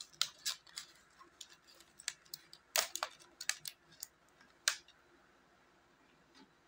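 Scissors cutting through a plastic bottle packed with coins: a run of sharp snips and plastic crackles that stops about five seconds in.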